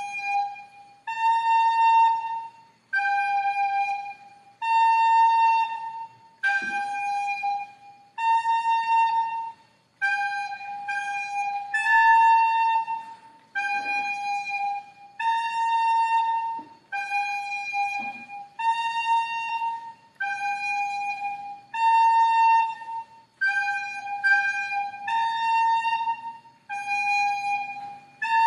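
Music from a single wind instrument playing two close notes back and forth, each held about a second with short breaks between, with a few faint knocks underneath.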